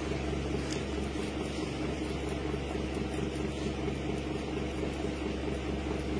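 A steady low mechanical hum of several held tones with an even hiss over it, unchanging in level.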